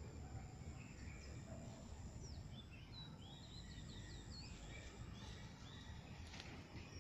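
Faint outdoor ambience: a steady low rumble with small birds chirping, a quick flurry of short up-and-down chirps about two to four seconds in.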